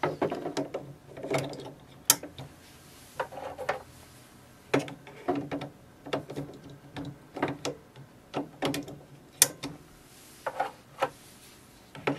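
Plastic ink cartridges being handled and pressed down into the carriage slots of an HP OfficeJet Pro 8020 inkjet printer: irregular clicks and knocks of plastic on plastic. A few sharper clicks, the loudest about two seconds in and near the ninth second, come as cartridges snap into their slots.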